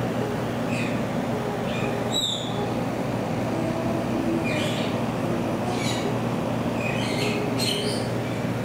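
Steady low hum of an indoor exhibit's ventilation, with short high-pitched chirps now and then and a quick run of them near the end.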